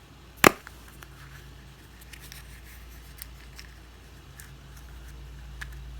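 Plastic toy capsule snapped open with one sharp click about half a second in, followed by a few faint clicks and small handling noises.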